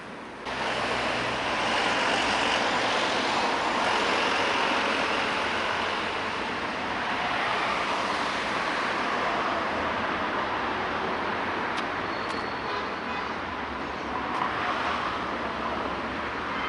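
City street traffic: a steady wash of passing cars and other road vehicles, jumping up in loudness about half a second in.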